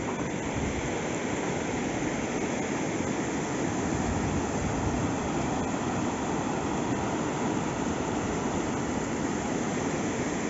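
Fast mountain river rushing through rapids over boulders: a steady, unbroken rush of churning water.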